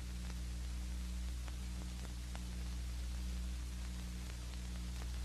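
Background noise of an old film soundtrack: a steady hiss over a low electrical hum, with a few faint scattered clicks.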